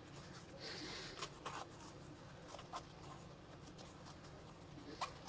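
Nylon fabric and webbing of a tactical vest being handled as a pouch is fitted onto it: soft rustling and scraping, with a few light clicks and one sharper click near the end.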